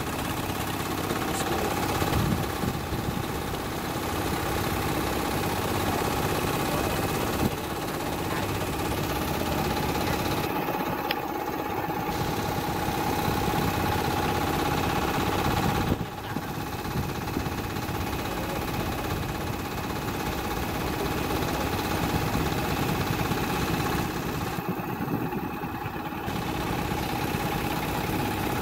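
Boat engine running steadily, a constant drone with a steady whine, with a brief dip just past halfway.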